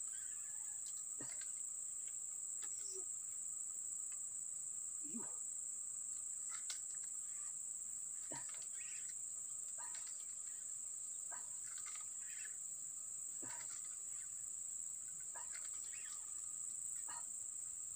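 Steady high-pitched insect drone, with scattered short calls about once a second over it.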